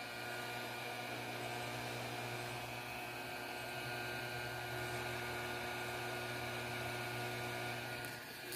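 A hot air tool's blower running steadily at a low setting as it heats heat-shrink tubing onto a repaired axle. It is a steady hum with several fixed pitches and cuts off near the end.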